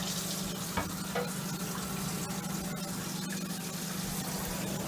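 Microwave oven running, a steady low hum under a whirring rush, with a couple of faint clicks about a second in; it is heating frozen chocolate to melt it.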